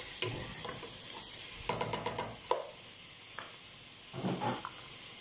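Raw chicken pieces sizzling in hot oil with fried onions in a nonstick pot, with a steady hiss, while a spatula stirs them, scraping and clicking against the pan about two seconds in and tapping a few times after.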